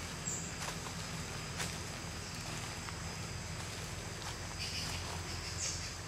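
Footsteps on a dirt forest path strewn with dry leaves, a few soft scuffs and rustles over a steady low hum.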